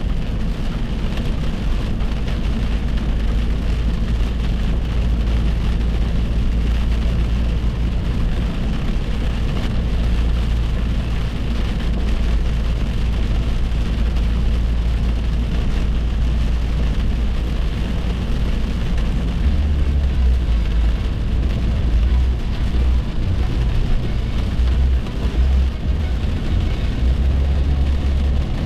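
Steady road noise of a car driving at highway speed, heard from inside the cabin, with a heavy low rumble.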